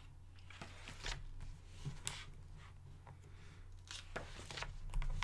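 Paper pages of a small bound art book being turned by hand: a few soft, short rustles and swishes of paper, over a low steady hum.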